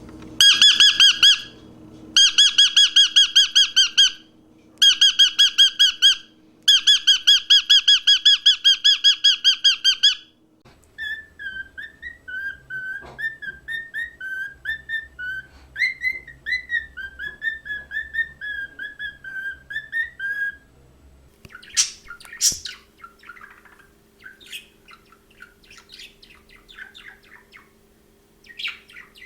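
A cockatiel crying in four long runs of rapid, loud repeated calls. About ten seconds in, it changes to a cockatiel whistling a warbling song. Around two-thirds of the way through, budgerigars take over with softer, varied chattering.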